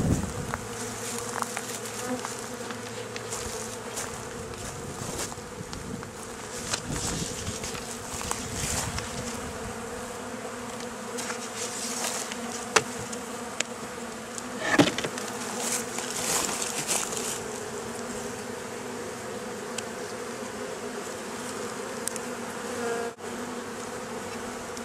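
A mass of honeybees buzzing in a steady, even hum, with a couple of brief knocks around the middle.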